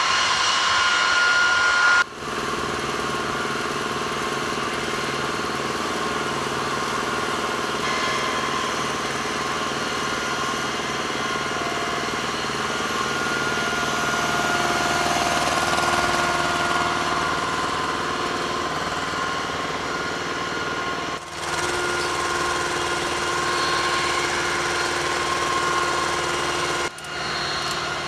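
Flight-line machinery running: a steady engine rumble under several high, steady whining tones, typical of aircraft ground support equipment. The mix changes abruptly about 2, 21 and 27 seconds in.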